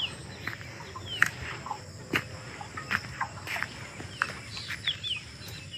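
Insects keep up a steady high-pitched drone while birds give short, quick chirps scattered throughout. A few sharp clicks are heard here and there.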